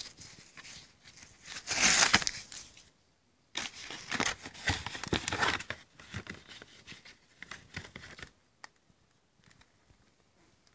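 A cardboard mailer being torn open by hand: loud bursts of tearing and rustling cardboard, with a brief break about three seconds in. It then fades to faint handling, with a single click near the end.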